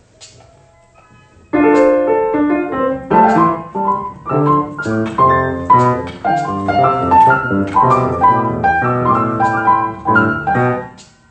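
Piano playing a passage of chords with a melody over them, starting suddenly about a second and a half in and stopping shortly before the end.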